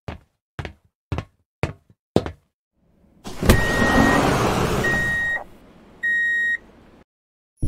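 Sci-fi door sound effects: five knocks about half a second apart, then a heavy clunk and about two seconds of hissing as the sliding doors open, with electronic beeps over it and one more beep after. Music comes in near the end.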